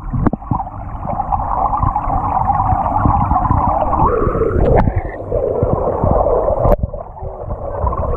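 Swimming pool water heard from a camera held underwater: a muffled, steady rush and rumble of moving water and bubbles, with a few sharp clicks, one about five seconds in and another about a second later.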